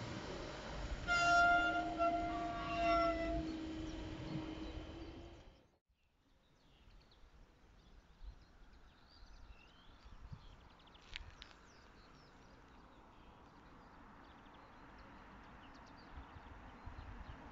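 Train passing over a level crossing with a steady rumble, and its horn sounding about a second in, loudest twice. The noise cuts off suddenly about six seconds in, leaving a faint outdoor background with a few bird chirps.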